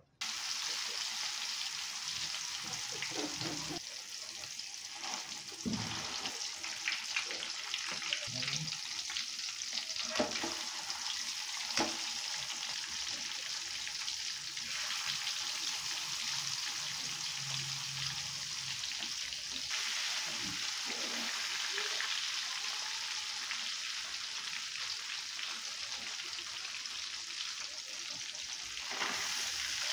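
Masala-coated snakehead fish frying in hot oil in a metal kadai: a steady hissing sizzle that starts suddenly as the fish goes into the oil. Now and then a fork clinks and scrapes against the pan as the fish is turned.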